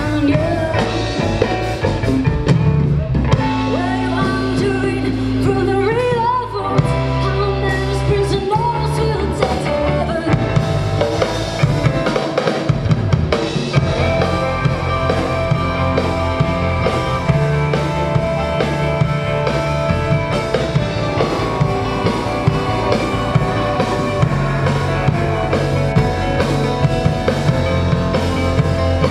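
Rock band playing live, with drum kit, bass and guitars. A vocal line is sung over it in the first part, and then the band carries on with held guitar chords.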